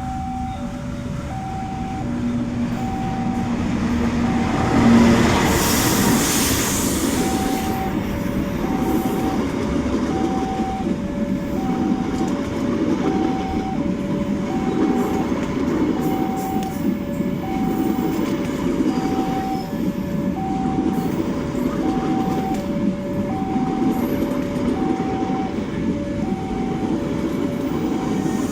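A train passing: a steady rumble of wheels on rail, with a rush of hiss about five seconds in. Over it, an electronic warning signal alternates a higher and a lower beep, about one pair a second. A low steady tone sounds at the start and stops about five seconds in.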